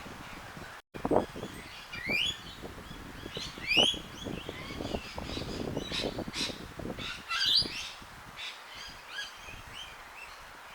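Garden birds chirping, with quick rising chirps about two and four seconds in and more calls later, over irregular low knocks and rustling.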